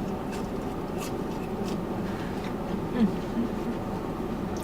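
A steady hum inside a parked car, with faint clicks of someone chewing food and a brief murmur about three seconds in.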